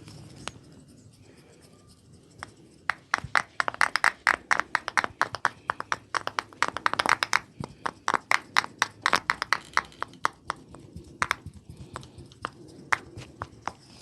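Hands working a head massage with quick percussive strokes: a fast run of sharp taps and slaps, several a second, starting about two and a half seconds in and thinning out near the end.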